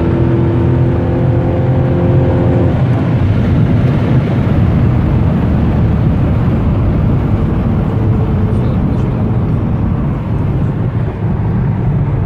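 Mercedes CLS 55 AMG's supercharged V8 heard from inside the cabin while driving hard at speed, with loud road and wind noise. Steady engine tones give way about three seconds in to a dense, loud rush of engine and wind noise that holds for the rest of the run.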